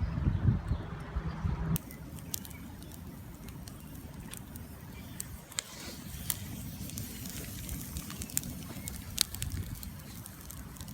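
Wind rumbling on the microphone with scattered sharp crackles and clicks. For the first couple of seconds a steady droning hum and some loud thumps sit over it, then stop abruptly.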